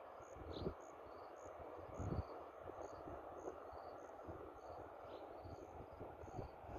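Insects chirping steadily, short high chirps repeating about once or twice a second, over a steady hiss of outdoor air, with a few low thumps of wind or handling on the microphone.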